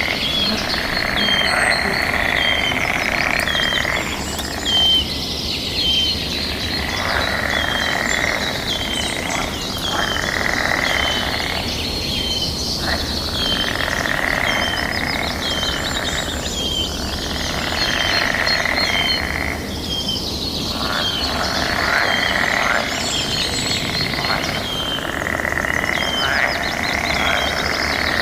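Dense, continuous chorus of calling wildlife: a short high note repeats about once a second over a steady layer of chirping and trilling calls.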